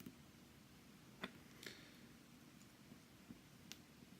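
Near silence, broken by a few faint, sharp clicks, the loudest just over a second in: small metal lock parts and tools being handled while the lock cylinder is taken apart.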